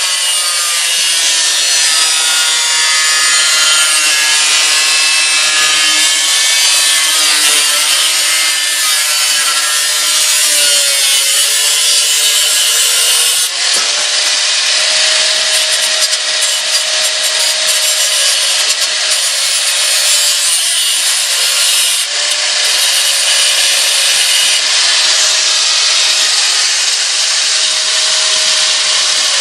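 Handheld electric power tool cutting a clamped workpiece, running continuously with a loud whine whose pitch wavers under load for the first dozen seconds or so, then holds steadier.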